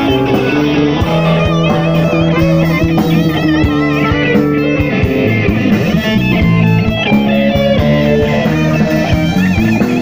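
Live blues band playing, led by an electric guitar with wavering, bending notes over bass and drums.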